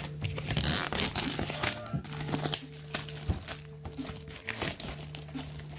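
Background rap music with a steady bass line, over crinkling and rustling of packaging being handled, with scattered small clicks.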